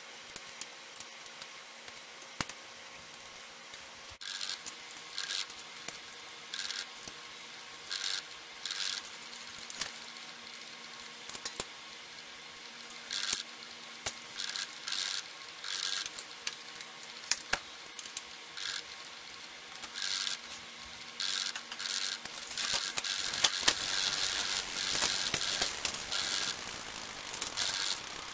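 Bicycle workshop handling on a 1993 Trek Antelope 830's front derailleur and cable: short scraping and clicking sounds every second or so. From about two-thirds in, the drivetrain turns, with the chain running over the chainrings and the rear wheel spinning in a continuous rattling whir.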